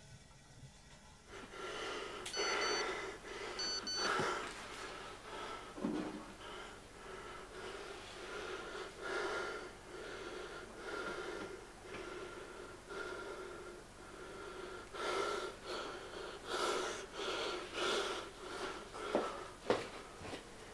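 Heavy, ragged breathing with wheezing gasps, starting about a second in and coming in irregular swells. Two short pairs of high beeps sound early on.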